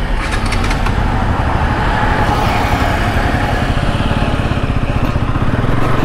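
Bajaj Pulsar NS200's single-cylinder engine running steadily as the motorcycle is ridden, with road noise.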